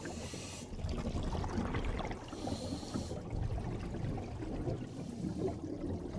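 Outro sound effect: a dense, bubbling, water-like bed of sound, with two short airy whooshes, one at the start and one about two and a half seconds in.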